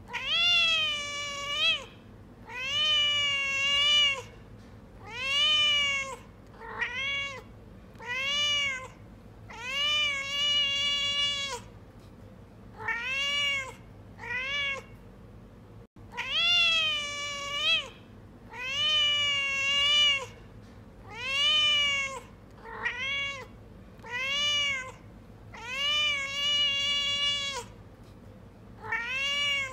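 A domestic cat meowing over and over, about fifteen meows, some long and drawn out, some short, each rising then falling in pitch. About halfway through, after a brief break, the same run of meows starts over.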